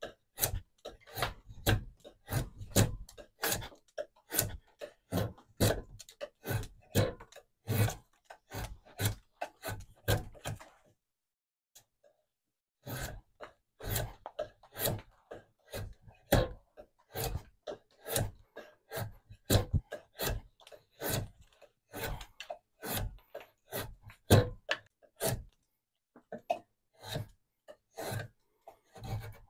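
Hand-tool strokes working down the end of a black walnut log, repeated at about two strokes a second with a break of about two seconds partway through, as the end is tapered toward a tenon.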